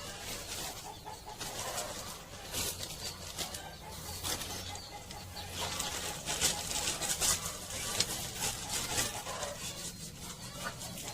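Chickens clucking, with scattered short taps and rustles.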